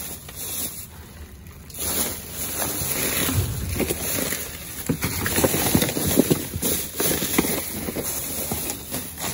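Clear plastic bags and packaging rustling and crinkling as gloved hands dig through a dumpster full of trash, with many quick crackles. Quieter at first, busier from about two seconds in.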